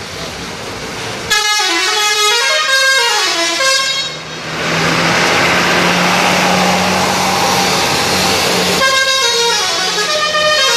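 Indonesian "telolet" bus horn, a multi-tone musical horn, playing a tune that steps up and down in pitch, starting about a second in. It breaks off for about four seconds of loud, noisy bus engine running, then plays its tune again near the end.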